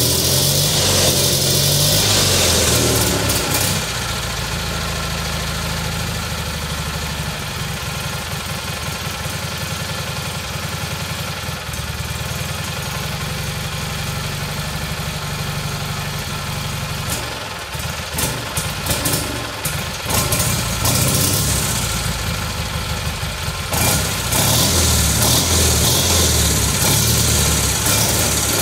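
Freshly rebuilt Kohler Magnum M18 air-cooled twin-cylinder engine running with its carburettor not yet tuned. Its speed changes as the throttle is worked by hand: fast at first, settling to a steadier idle about four seconds in, running unevenly for several seconds past the middle, then picking up again near the end.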